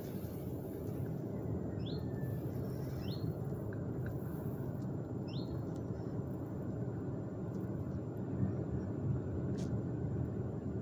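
Outdoor background noise with a steady low rumble, over which a bird gives three short rising chirps in the first half.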